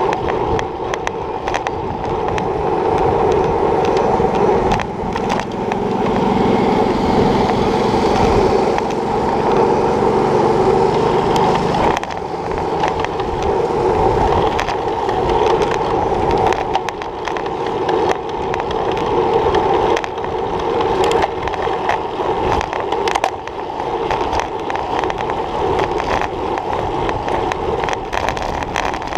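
Road bicycle rolling fast over rough asphalt: steady tyre and road noise carried up through the handlebar-mounted camera, with frequent small knocks and rattles from bumps in the surface.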